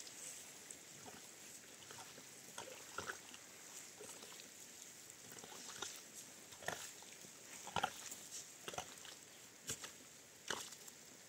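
Irregular small clicks and light knocks over a faint steady hiss, with the loudest few coming close together about eight seconds in and again near the end.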